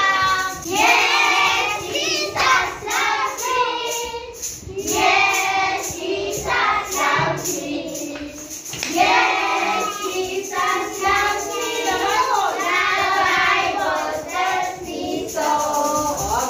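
A group of young girls singing a song together, phrase after phrase with short breaks between.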